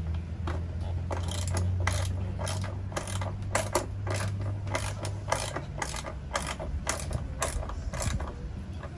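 Small ratcheting wrench tightening a battery cable terminal nut, its pawl clicking in short bursts about twice a second as the handle is swung back and forth. A low steady hum runs underneath.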